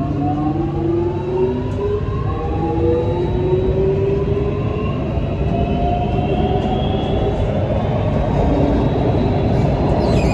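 Alstom-built North East Line metro train accelerating away from a station, heard from inside the car. Its traction-motor whine climbs in pitch in a series of rising steps over the steady rumble of the wheels on the rails.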